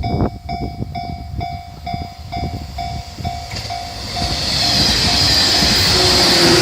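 Japanese level-crossing warning bell ringing about twice a second, with train wheels clicking over rail joints. From about four seconds in, an electric train's running noise builds up loud, with a steady whine, and covers the bell.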